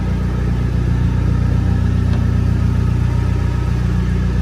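Dodge Neon SRT-4's turbocharged four-cylinder engine idling steadily, fitted with an aftermarket intake and exhaust.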